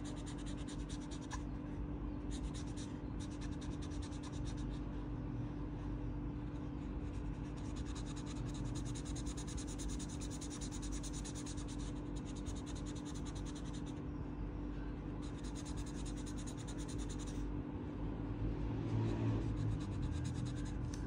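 Acrylic marker nib scratching rapidly back and forth on paper while colouring in, in runs of a few seconds with short pauses between them, over a steady low hum.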